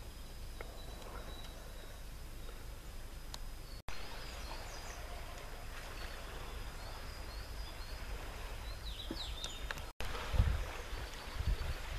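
Quiet open-air ambience with a steady faint hiss and a few short, high bird chirps in the middle; near the end, low rumbling bumps come in.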